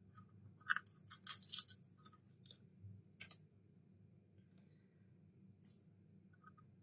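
Shattered iPhone X rear glass being pried and scraped off with a small blade, fragments cracking and clinking in a quick cluster of sharp ticks about a second in, then single clicks a little after three seconds and near five and a half.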